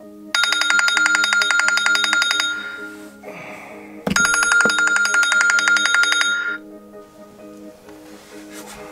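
Smartphone ringing with a rapid electronic trill in two long bursts, the second starting about four seconds in, over soft background music; a couple of light knocks sound just as the second burst begins.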